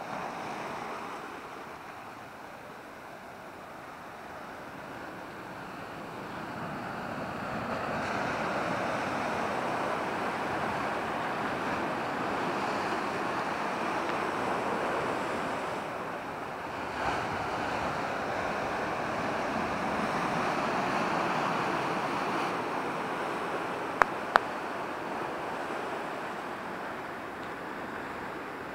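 Surf breaking and washing over rocks on a rocky shore: a steady rushing wash that grows louder for a long stretch in the middle. Two sharp clicks come close together about three-quarters of the way through.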